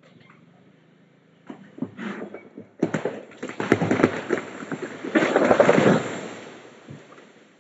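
A large tree snapping and crashing down onto a house: scattered cracks of breaking wood grow into a dense crash of splintering limbs and branches, loudest about two-thirds of the way through, then dying away.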